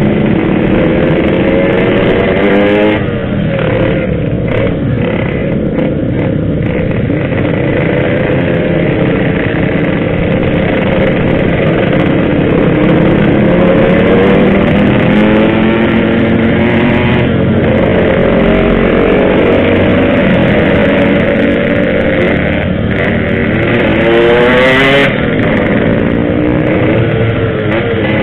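Yamaha RX-King's two-stroke single-cylinder engine pulling the bike along, its revs rising and falling again and again as the rider works the throttle and gears.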